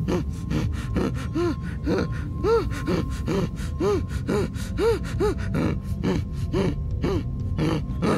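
A man gasping and groaning in short rising-and-falling breaths, about two a second, as he thrashes on the floor in a fit, over a fast run of short knocks. The fit is put on as a joke.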